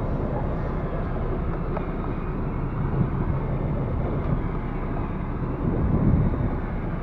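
Steady low rumble of wind buffeting the microphone, mixed with the noise of a fishing boat at sea, with no distinct separate events.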